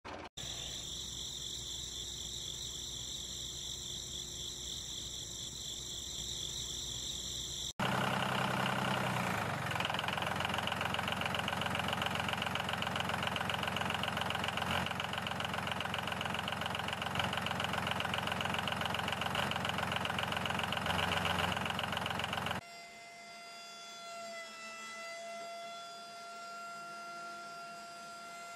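The small motor and gear train of a DIY model tractor running, in a few edited takes with a hard cut about eight seconds in. In the last several seconds it drops to a quieter, steady whine.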